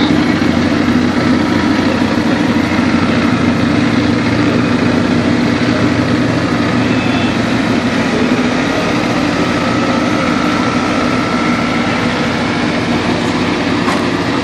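Engines of Ford Escort Mk2 rally cars idling steadily at low speed, loud and close.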